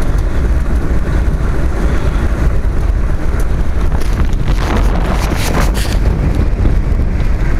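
Wind buffeting the microphone of a camera on a moving velomobile, a steady low rumble, with a few brief scraping noises around five seconds in.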